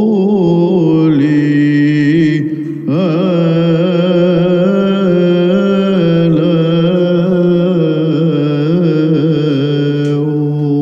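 Orthodox chant: singing voices carry a slow melody over a steady low drone, with a brief break in the singing about three seconds in.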